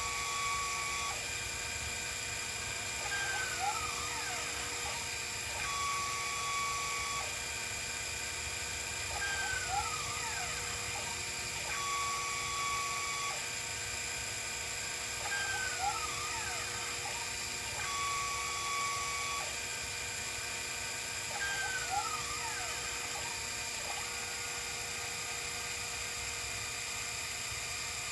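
Sherline CNC mill's stepper motors whining as they drive the axes through a program, over a steady hum. The same cycle repeats four times, about every six seconds: a held tone, a higher held tone, then pitch glides up and down as the axes speed up and slow down.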